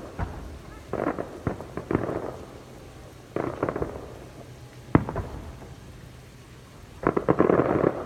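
Fireworks going off: clusters of sharp crackles, a single sharp bang about halfway through, then a dense run of crackling near the end.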